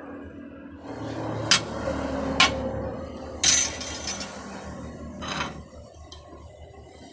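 Metal pieces clinking and knocking: two sharp strikes about a second apart, then two longer, rasping ones, over a low steady background.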